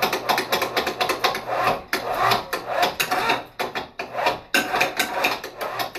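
Two small electric cable hoists on a wooden header running together to winch a bay window up, with a low motor hum under a rough rattling, rubbing and creaking of the rig. The sound dips briefly twice.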